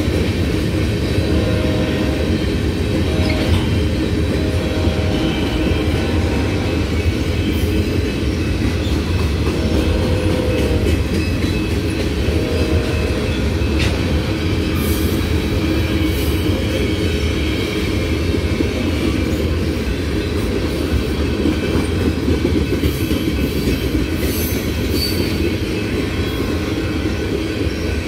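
Freight cars of a manifest train rolling past: a steady rumble and clatter of steel wheels on the rails, with occasional brief wheel squeals.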